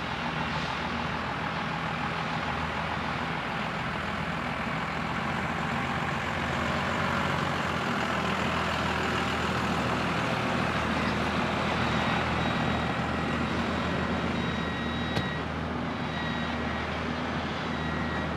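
Caterpillar diesel engines of a super-load heavy-haul rig running steadily under load as the Peterbilt tractor and powered trailer booster pull slowly, getting a little louder partway through. In the second half a short high beep repeats about once a second.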